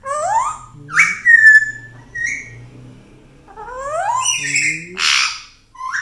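African grey parrot whistling: a quick rising whistle at the start, a held whistle note about a second in, and another rising whistle near four seconds. A short harsh squawk follows about five seconds in.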